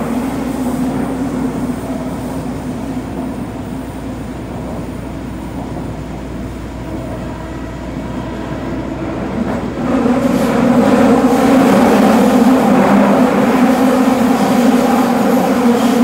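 Running noise heard inside a Toei Oedo Line 12-000 series linear-motor subway car in a tunnel: a steady rumble with a low hum. It gets suddenly louder about ten seconds in.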